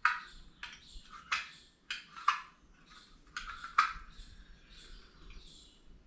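Portable camping gas stove being started: a series of sharp clicks from the piezo igniter, about seven over the first four seconds, some with a short hissy tail.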